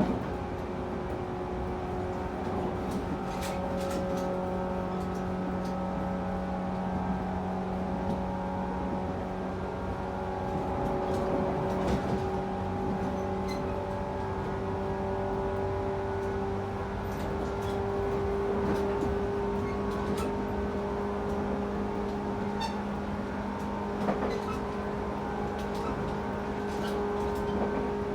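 Running sound of a 113 series electric train's motor car (MoHa 113-2015) at speed: a steady hum from the MT54 traction motors and gearing whose pitch creeps up slowly, with scattered sharp clicks from the wheels and running gear.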